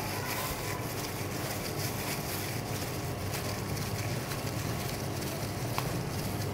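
Steady low hum and hiss of background noise, with faint soft rustles from a disposable plastic glove as hands shape a mashed potato and chicken mixture into patties.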